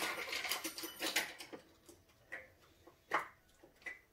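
Short irregular clicks, scrapes and a few faint squeaks from kitchen utensils being handled, busiest in the first second and then a few isolated clicks.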